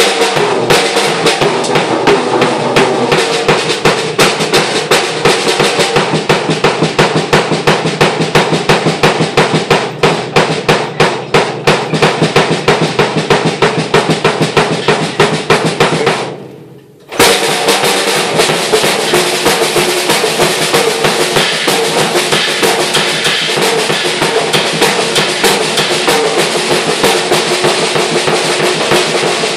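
Stagg drum kit played solo: rapid strokes on snare and bass drum. The playing stops for about a second just past the middle, then the beat resumes.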